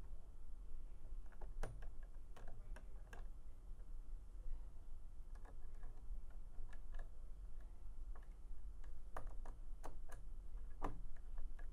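A screwdriver tightening the set screws on metal conduit connectors and electrical outlet boxes: scattered, irregular light clicks and ticks, bunched about two seconds in and again around nine to eleven seconds, over a low steady hum.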